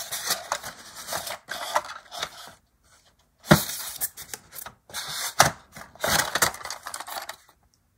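Plastic HO-scale model coaches being handled and slid out of a styrofoam packing tray: irregular rubbing and scraping of foam and plastic, with two sharp knocks partway through. It stops shortly before the end.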